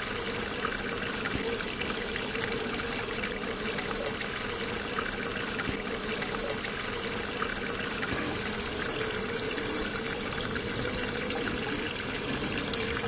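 Steady trickle of running water in a garden pond, an even rushing hiss that goes on without pauses or changes.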